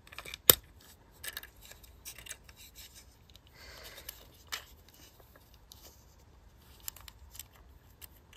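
Small metal spring and hard plastic parts of a Blythe doll's eye mechanism clicking and scraping as the spring is prised off inside the plastic head shell. A sharp click about half a second in, a short rasping scrape a little before the middle, another click soon after, and light ticks and taps.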